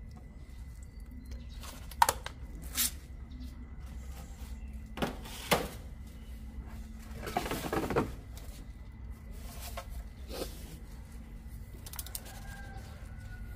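Handling noise: a handful of separate knocks and scrapes a second or more apart, over a low steady rumble.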